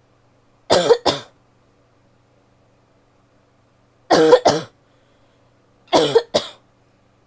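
A woman coughing: three short bouts of two quick coughs each, about a second in, about four seconds in, and near the end.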